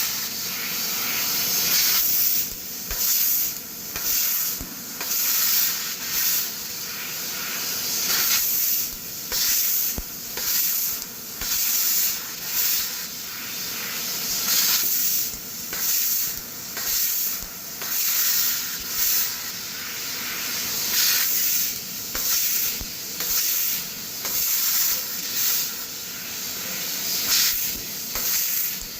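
CNC laser cutter cutting steel sheet: a bright hiss that surges and falls back in irregular pulses, roughly one every second or two.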